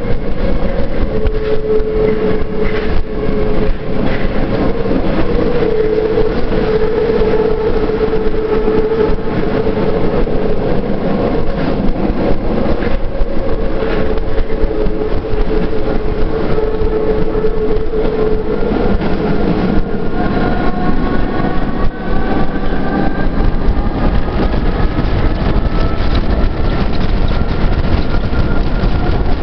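Paris Métro MF67 train running through a tunnel, heard from inside the car: a steady loud rumble of steel wheels on rail with a held whine. From about two-thirds of the way in, the whine climbs slowly in pitch.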